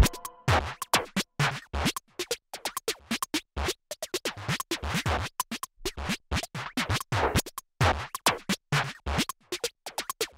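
Background music: a sparse electronic track made of rapid, irregular short clicks and scratch-like hits over occasional low drum beats.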